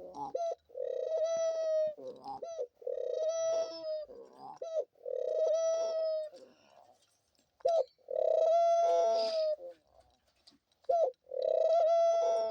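Pet dove cooing repeatedly: five long, steady coos of a second or more each, coming every two to three seconds, with a short clipped note before each.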